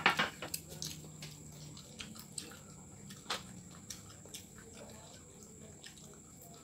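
Children chewing food with open mouths: a run of wet mouth clicks and lip smacks, the loudest one right at the start.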